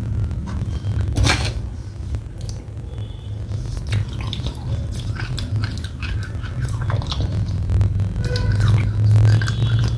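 Wet mouth sounds of someone eating soft red clay paste off a spoon: sticky smacks and clicks of lips and tongue, over a steady low hum.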